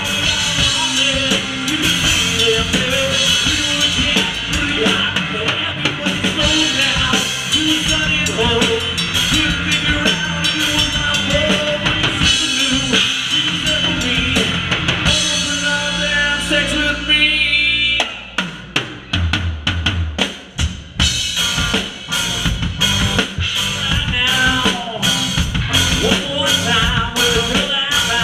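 Rock band playing live, the drum kit miked close by a GoPro on the kit so kick, snare and cymbals sound loudest, with bass guitar underneath. About two-thirds of the way through, the band breaks into short, separate stabbed hits with gaps, then drives on again.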